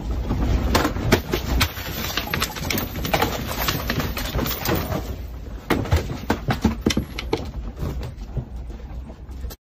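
Furniture and loose objects in a small room rattling and clattering as the room shakes in an earthquake: a dense run of quick irregular knocks and rattles over a low rumble that is heaviest in the first second or so, cutting off suddenly near the end.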